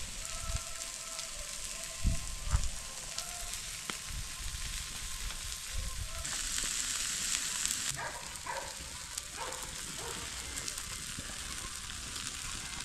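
Food frying with a steady sizzle, the hiss growing louder for a couple of seconds about halfway through, with a few faint clicks and knocks.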